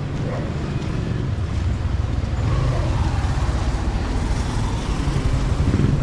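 Motorcycle engine of a motor tricycle (motorcycle with sidecar) approaching along the street, growing louder as it comes nearer.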